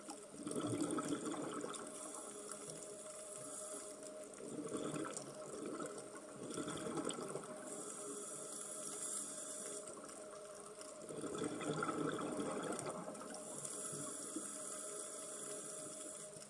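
A scuba diver breathing through a regulator, heard underwater: three swells of gurgling exhaled bubbles, with a high hiss in between.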